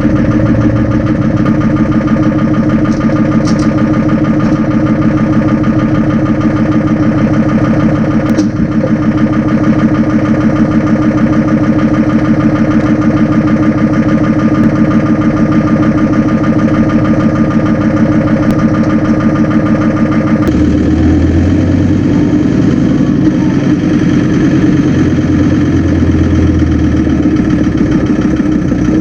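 Old John Deere 4430/4440-series tractor's six-cylinder diesel running steadily just after a cold start. About twenty seconds in its sound changes and a deeper rumble comes and goes.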